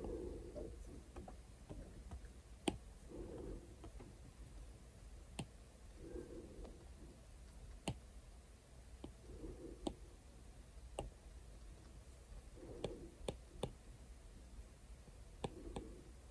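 Faint, irregular clicks of an Apple Pencil's hard plastic tip tapping the iPad's glass screen while painting, about one every second or two, with a quick cluster about two thirds of the way through.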